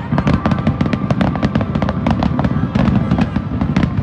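Fireworks display at full intensity: a rapid barrage of sharp cracking bursts, several a second, over a continuous low booming rumble.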